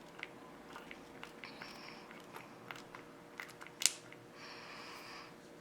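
Faint small clicks and taps of a cosmetic pump bottle of concealer cream being handled and pumped, with one sharper click a little before four seconds in and two soft hissy sounds, about a second and a half in and again after four seconds.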